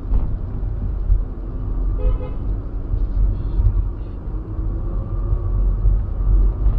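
Car on the road, a steady low rumble of engine and road noise, with a brief horn toot about two seconds in.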